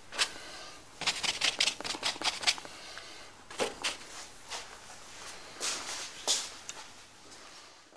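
Paint being brushed onto a stretched canvas: short scratchy strokes, a quick flurry of them about a second in, then scattered single strokes.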